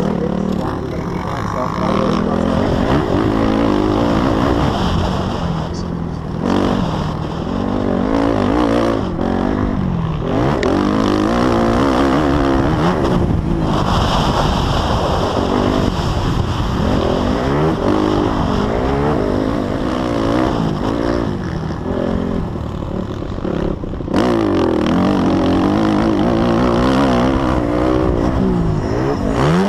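Single-cylinder motocross bike engine heard from the rider's helmet, revving hard up and down through the gears. The throttle is shut off briefly a few times, the sharpest drop about 24 seconds in, before the engine revs up again.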